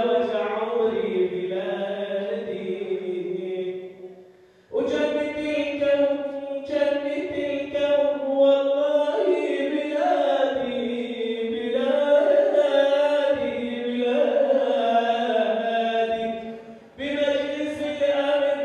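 A man's voice chanting into a microphone in long, drawn-out held notes that step up and down in pitch, pausing briefly twice, about four seconds in and near the end.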